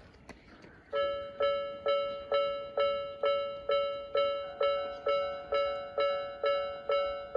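Japanese railway level-crossing alarm of the Nikko type starting up about a second in: an electronic bell tone repeating a little over twice a second, each ding fading before the next. A second, slightly different tone joins about halfway through.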